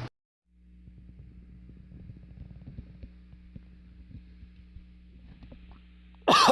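Steady low electrical hum with many faint, scattered crackling ticks, then a loud cough breaks in just before the end.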